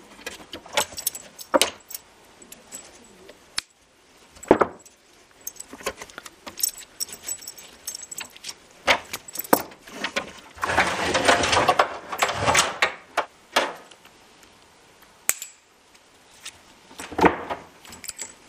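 Metal buckles and adjusters of a safety harness clicking and clinking against an aluminium seat as the harness is taken off. From about ten seconds in, for around three seconds, nylon webbing is dragged over and through the seat with a rustling scrape.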